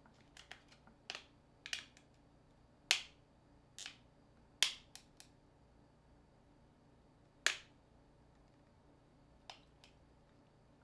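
Irregular sharp plastic clicks and snaps as a smartphone is taken apart by hand with a small screwdriver. There are about a dozen clicks, three of them louder than the rest, spread through the few seconds.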